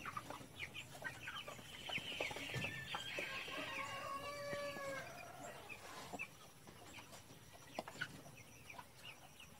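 Chickens clucking softly, with one rooster crowing in a single long, held call from about three to five seconds in.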